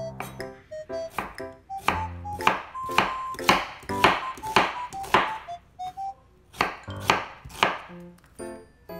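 Chef's knife slicing through an onion onto a bamboo cutting board: a run of sharp knocks about twice a second, with a short pause about six seconds in, over light background music.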